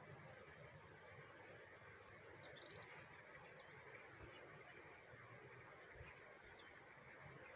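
Faint countryside ambience: a steady, high insect trill, with a few short bird chirps about two and a half to three and a half seconds in and again near the end.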